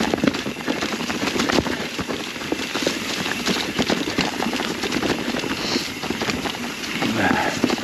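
Mountain bike rolling fast down a rocky trail covered in dry fall leaves: tyres crunching through the leaves, with a steady clatter of many sharp knocks and rattles as the bike hits rocks.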